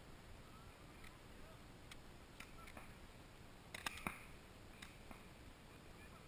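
Faint, scattered pops of pump and pistol paintball markers firing at a distance, with a quick cluster of sharper shots about four seconds in.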